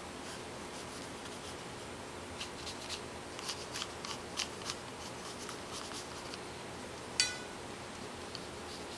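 A run of short, faint scratchy strokes on paper from a sketching tool, then one sharp pitched click near the end.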